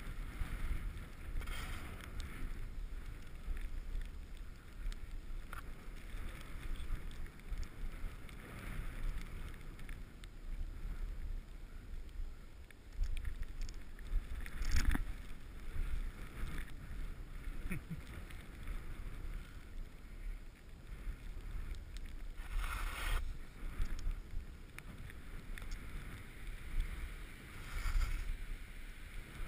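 Wind rumbling on an action camera's microphone while skiing downhill, with the skis hissing and scraping over packed snow in repeated turns, louder spells about halfway through and again about three quarters through.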